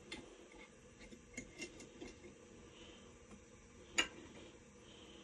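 Faint clicks and light scrapes of a metal canning-jar lid and screw band being handled and unscrewed, with one sharper metallic click about four seconds in.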